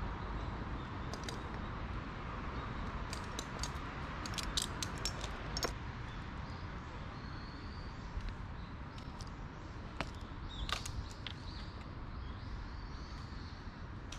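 Scattered sharp clicks and clinks of a tree climber's rope hardware and carabiners, bunched in two short spells, over a steady low rumble.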